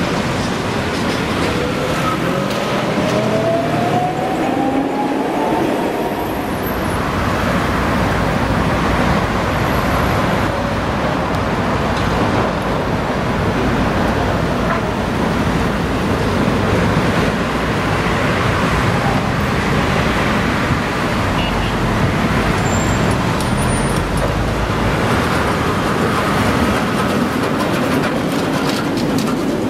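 City street traffic noise throughout, with an old articulated tram's electric motors whining up in pitch over the first few seconds as it gets under way. Near the end the tram runs past close by.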